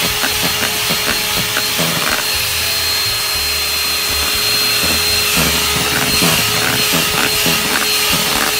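Electric hand mixer running, its beaters whisking thick cake batter in a stainless steel bowl: a steady motor whine with irregular small ticks.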